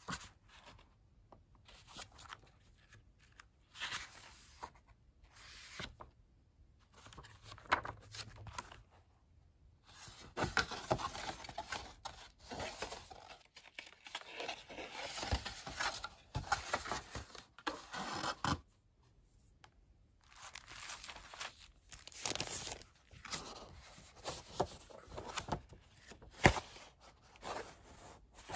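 Close-miked handling of a Traveler's Notebook and its packaging: the leather cover and paper refill being handled, and cardboard and paper packaging rustling and scraping in short bouts and longer stretches, with a few sharp taps.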